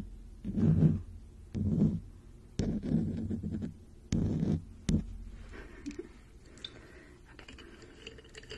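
A fluffy brush swept over the phone's microphone in about five short strokes, each a deep, muffled swish, the last ending in a light tap about five seconds in. After that only faint rustling.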